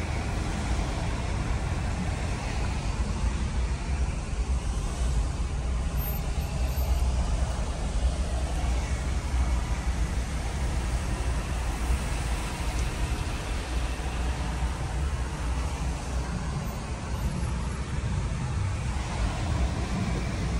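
Road traffic in heavy rain: a steady hiss with a deep rumble underneath.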